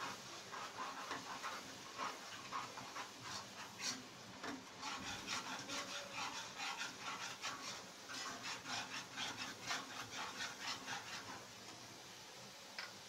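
A spoon stirring and scraping thick tomato masala around a non-stick kadai: a run of quick scraping strokes that speeds up in the second half and stops near the end.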